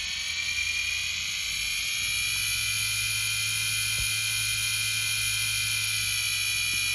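Racerstar 4023 850 kV brushless outrunner motor spinning up under gently eased-in throttle: a high electric whine that rises in pitch over the first couple of seconds, then holds steady.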